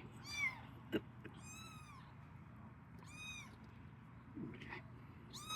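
Young kittens mewing: four or five short, high-pitched meows, each rising and falling in pitch, spaced about a second apart. A sharp click sounds about a second in.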